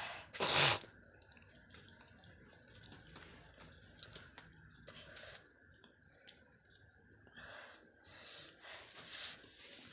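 A person spits once, sharply, about half a second in, then soft wet mouth clicks and a few faint breaths.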